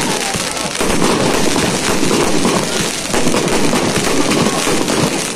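Aerial fireworks bursting overhead, heard as a dense, rapid crackle of many small pops, as from glittering crackling stars.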